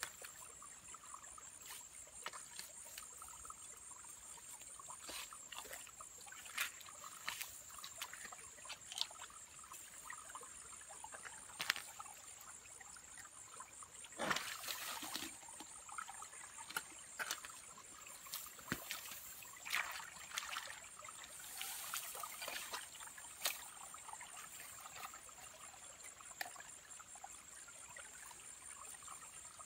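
Hands groping through shallow water and mud, making small irregular splashes and trickles, with a louder splash about fourteen seconds in. A steady high-pitched whine runs underneath.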